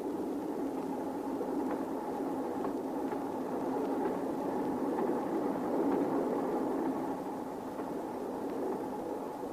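A moving train's steady running rumble, a continuous noisy drone with a faint steady hum over it, growing a little louder around the middle.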